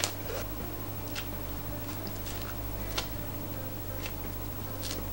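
Close-miked eating sounds as a woman bites and eats ice cream from a small cup: a few soft, separate mouth clicks and smacks over a steady low hum.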